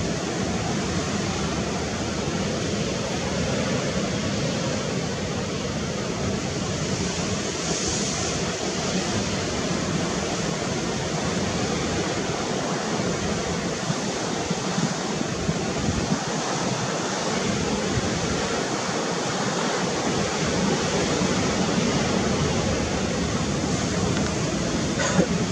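Steady rushing noise of sea and wind, with one short click near the end.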